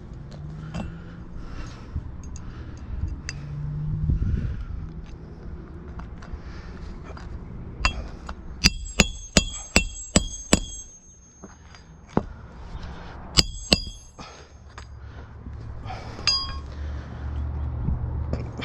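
Sharp metallic clinks with a short ring, about seven in quick succession near the middle, then a couple more and a last one later on, from roofing metal such as nails or a hand tool being handled. A steady low rumble runs underneath.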